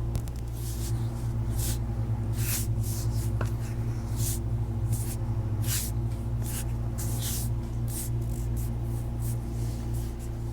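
Quick, irregular swishing strokes of hands rubbing over skin during a foot massage, picked up close by wrist microphones, over a steady low droning hum.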